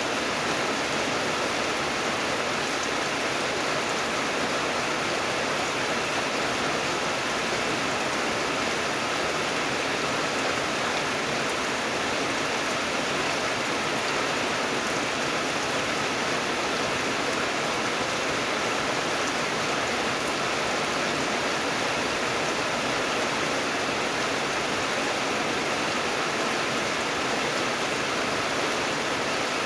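Steady, even rainfall with no separate drops or thunder standing out.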